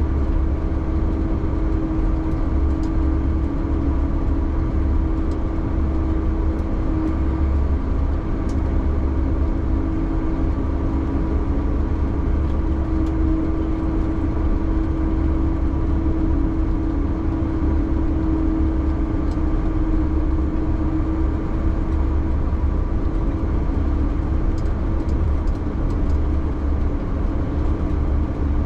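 Vehicle engine running steadily at constant speed: a deep low rumble with a steady hum above it, heard from inside the cab.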